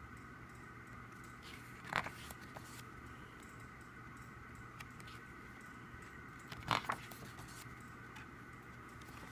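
Handling of a CD album's photo book: two brief sharp paper-handling sounds, one about two seconds in and a quick double near seven seconds, over a faint steady hum.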